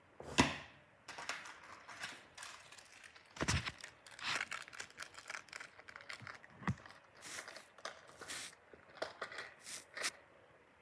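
Crinkling and rustling of an earring display card and its packaging being handled, with irregular sharp clicks and taps as the earrings are taken off and placed in the jewelry box.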